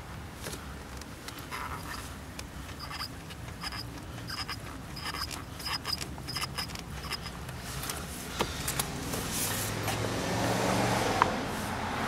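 Rubber shifter boot being rocked back and forth and worked up the gear stick by hand: scattered clicks, scrapes and short high squeaks of greased rubber on metal. In the last few seconds the low rumble of a vehicle going by builds up.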